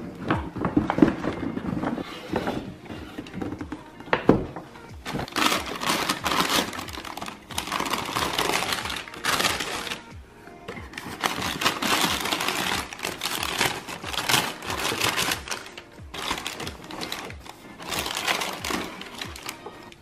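Paper and cardboard handling during a sneaker unboxing: irregular rustling and crinkling of a paper carrier bag, a shoebox and its tissue-paper wrapping, with a few sharp knocks.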